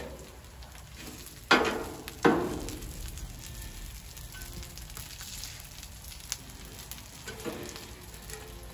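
Hash browns sizzling on the steel plate of a Blackstone flat-top griddle, with two sharp clacks of a metal spatula against the griddle about a second and a half and two seconds in.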